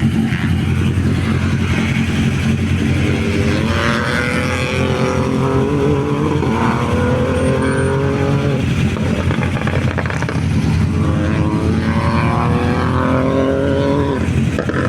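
Rally car engines at a stage start: a steady low engine note runs throughout, while an engine's revs climb from a few seconds in, dip just past halfway as if shifting gear, and climb again until near the end.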